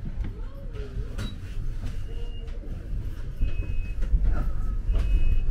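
Tram heard from inside the car, rumbling low as it runs on its rails, with scattered knocks and rattles and a few brief high squeals. It grows a little louder in the second half.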